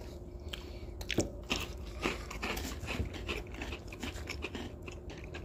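Crunching and chewing of small, hard, round vanilla biscuits (San Jorge Munición) as two people bite into them, a run of irregular crisp crunches.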